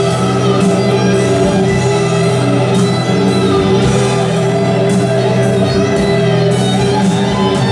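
Background music with held, layered notes, playing at a steady level.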